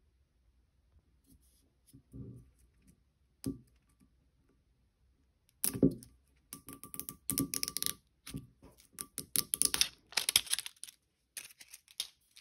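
A paper tape seal being picked at and peeled off a whisky bottle's cork stopper: a run of scratchy, crackling tears that starts about halfway in. A single sharp knock comes a few seconds earlier.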